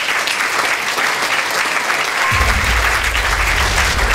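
Audience applauding. About two seconds in, a low steady hum joins underneath.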